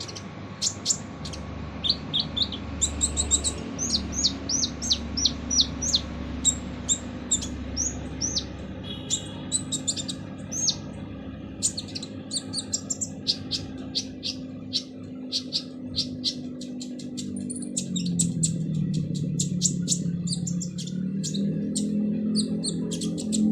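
Kolibri ninja sunbird singing a fast, harsh run of short, sharp, high chirps and ticks that follow one another almost without pause.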